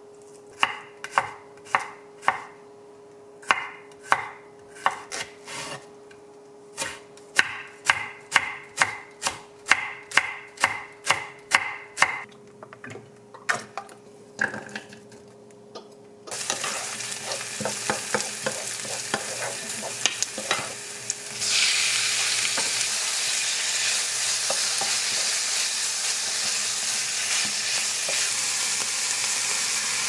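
A knife chopping raw pork on a wooden cutting board, in uneven sharp knocks. About halfway through, chopped garlic and green onion start sizzling in hot olive oil in a frying pan, and the sizzle grows louder about five seconds later.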